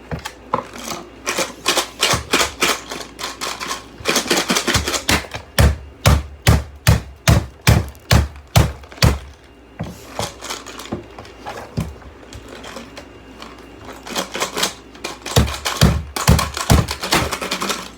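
Screws, bolts and batteries clattering against the plastic of a vacuum cleaner as they are put in and jostled: a long run of sharp, irregular knocks and rattles, fastest and loudest in the middle and again near the end.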